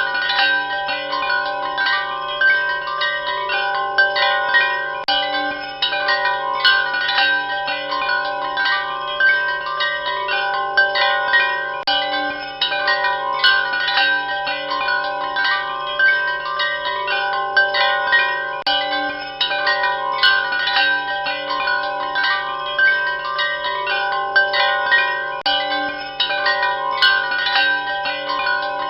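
Wind chimes ringing continuously: many metal tones struck at irregular, closely spaced moments, each ringing on and overlapping the next, over a steady low hum.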